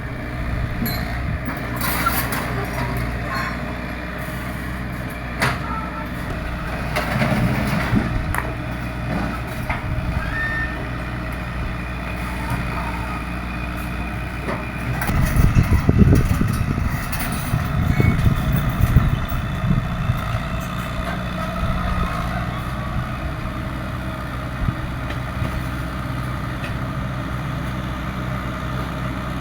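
Excavator's diesel engine running steadily, swelling louder several times as it works under load, loudest about halfway through, with scattered knocks.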